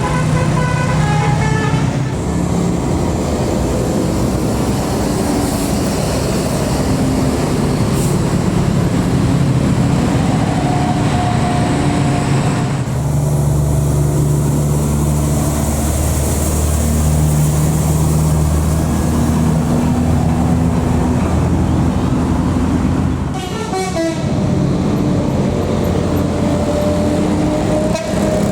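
Tour buses' 'telolet' musical horns tooting melodies of short stepped notes, over the running of a bus's diesel engine. About halfway through a deep engine rumble comes in strongly for several seconds, and near the end a quick falling glide sounds.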